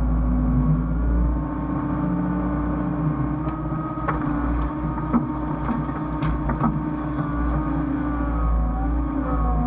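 Hyundai hydraulic excavator working: its diesel engine runs steadily with a low rumble while the hydraulic whine rises and falls in pitch as the controls are worked. A few sharp knocks come in the middle.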